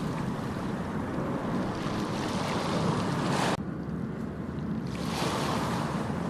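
Ocean surf washing onto a beach: a continuous rushing wash. About three and a half seconds in, the hiss drops off suddenly, as at a splice in the recording, and a fresh wave swells back up a second or so later.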